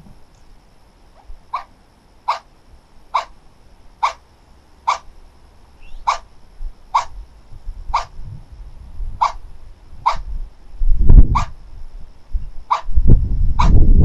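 A loud, sharp animal call repeated about a dozen times, roughly once a second, each call short and alike. A low rumble comes in about eleven seconds in and again near the end, louder than the calls.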